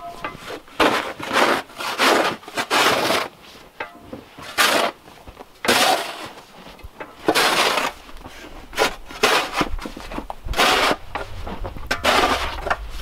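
Snow shovel scraping across a wooden deck and scooping snow, in a run of irregular strokes about every half second with short pauses between groups.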